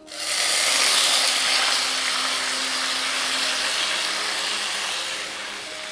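Soaked rice tipped into hot oil with whole spices in a pan, setting off a loud sizzle. It starts suddenly, is loudest about a second in, and slowly dies down.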